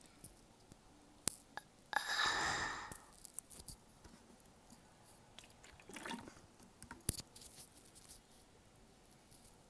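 Close-up mouth sounds of someone eating candy: scattered sharp clicks and small crackles, with one louder rush of noise about two seconds in that lasts around a second.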